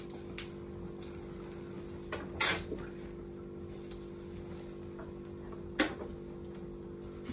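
Freshly lit wood fire in a fireplace, kindled with fire-lighting gel, giving a few sharp pops and cracks, the loudest about two and a half seconds in and near six seconds, over a steady low hum.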